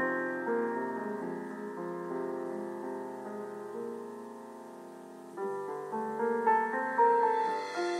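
Background piano music: held notes slowly fading, then a new, louder phrase of notes begins about five seconds in.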